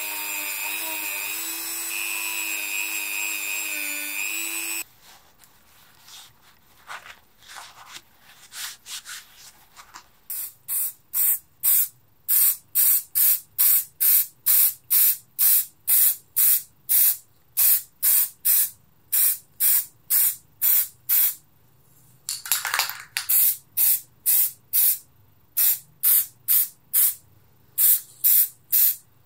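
A small handheld rotary tool whines steadily as it works on a steel lever, then stops about five seconds in. Spray paint then hisses in a long run of short bursts, about two a second, with one longer spray past the middle; these bursts are the loudest sound.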